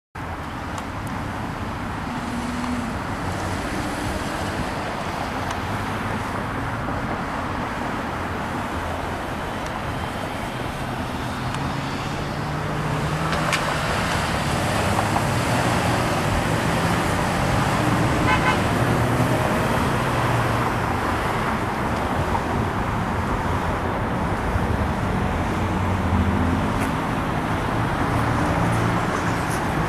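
Road traffic: cars and their engines passing in a steady wash of noise, growing louder about halfway through.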